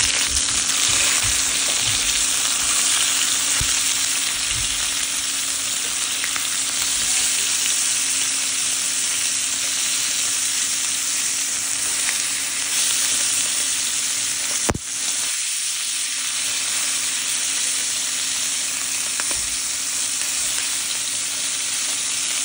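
Chicken thighs frying in hot oil in a pan, a steady loud sizzle, with a few low knocks in the first few seconds and a single sharp click about fifteen seconds in.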